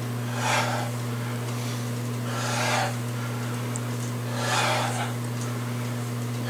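A man breathing hard through a set of squats: a rough exhale about every two seconds, three in all, over a steady low hum.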